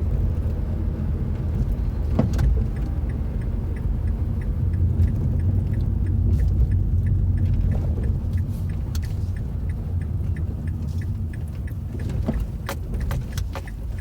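A 2006 Mazda 3 hatchback rolling along, heard as a steady low rumble, with light even ticking about three times a second. Sharp knocks come once about two seconds in and then several together near the end, which could be the rear clunk that the owner is trying to trace.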